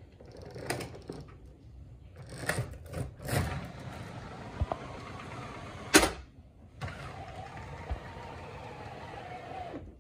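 Window blind being drawn down over a hotel window: rustling and scraping, a sharp clack about six seconds in, then a steady whirring rattle as it runs down, stopping near the end.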